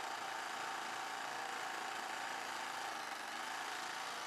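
Electric sewing machine running steadily, stitching a seam through fabric.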